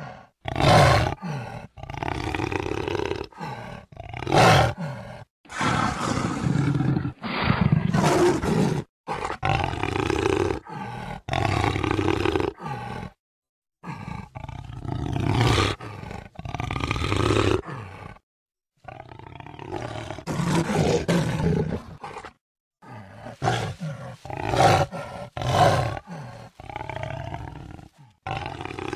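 Jaguar roaring: a long run of separate roars, some short and some lasting about two seconds, with brief gaps between them and abrupt starts and stops.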